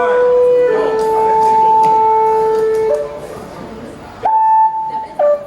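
Long, steady held musical notes in a sound check: two notes sounding together for about two seconds, a short gap, then a single higher note about four seconds in that drops to a lower one near the end.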